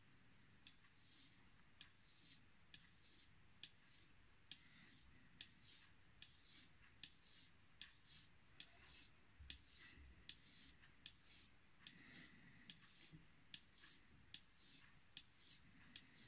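Knife blade drawn in repeated strokes across a wet 2000-grit Chinese natural whetstone: faint, even swishes, about two a second.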